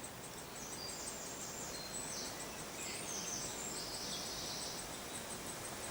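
Great spotted woodpecker nestlings begging in the nest hole: a faint, rapid, very high ticking chatter of about four or five notes a second. Brief higher calls come over it in the middle.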